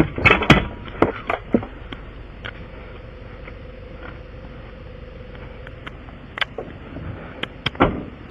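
A series of sharp knocks and clanks over a steady background hum: a cluster in the first second and a half, a few scattered ones later, and another group near the end.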